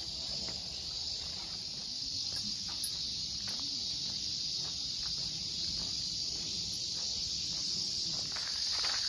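A steady, high-pitched chorus of insects in the forest trees, with light footsteps on the path that grow clearer near the end.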